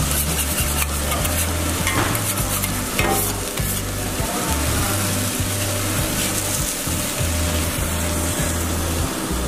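Tteokgalbi beef patty under a melting cheese slice sizzling steadily on a flat-top griddle. Low bass notes of background music run underneath.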